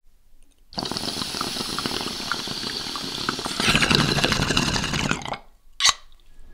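Channel intro sound effect: a noisy hiss with scattered crackles that grows louder about halfway through, then cuts off and is followed by a single sharp hit near the end.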